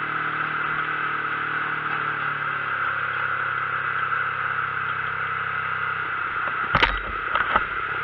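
Vehicle driving, engine running under steady road and wind noise, its note drifting slowly lower. A single sharp knock near the end, followed by two lighter clicks.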